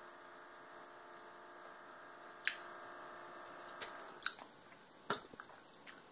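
Close-up mouth sounds of someone chewing Hot Tamales cinnamon candies, with several sharp clicks. A steady hum underneath stops about four seconds in.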